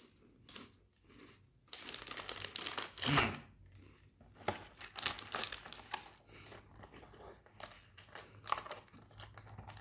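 A plastic cracker sleeve crinkling and a cardboard snack box being handled, its flaps folded, in a run of rustles and small clicks. The crinkling is loudest about three seconds in.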